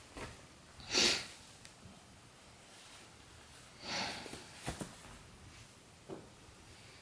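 A Samoyed sniffing through its nose: two short, sharp sniffs, the louder about a second in and another about four seconds in, followed by a couple of faint clicks and a small third sniff near the end.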